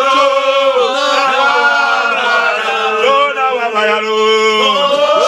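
Men's voices singing a prayer chant together, with long held, gliding notes.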